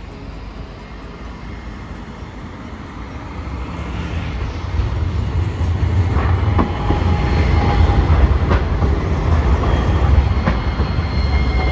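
Hiroden 5100-series Green Mover Max low-floor tram approaching on street track and passing close by, its low rumble growing louder from about four seconds in, with a few sharp clacks of the wheels on the rails as it goes by.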